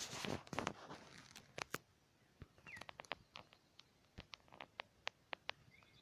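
Irregular sharp clicks and crackles close to the microphone, with a brief rustle at the start and a short falling chirp a little under halfway through.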